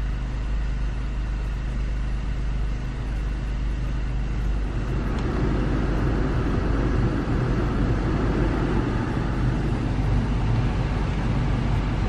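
The cabin blower fan of a 2016 Honda Pilot's climate control coming up to speed about five seconds in, then blowing steadily as the AC is switched on and set to Lo, over the steady hum of the idling engine.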